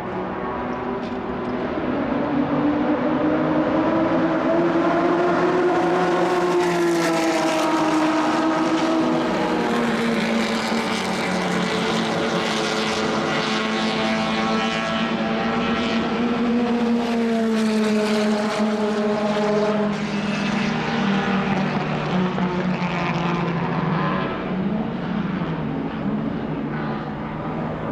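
1960s racing car engines running at speed on a circuit, their pitch rising and falling as they rev and pass. The sound swells twice as cars go by close, first about a quarter of the way in and again past the middle.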